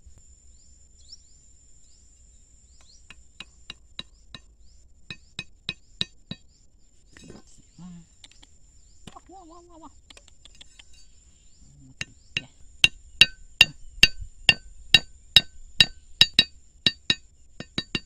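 A metal machete blade struck again and again, each knock ringing with a metallic clink. There is a scattered run of knocks, growing louder, from about three seconds in, then a faster, louder run of about three knocks a second over the last six seconds.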